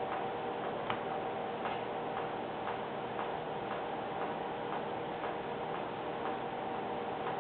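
Clock ticking steadily, about two ticks a second, over a faint steady hum.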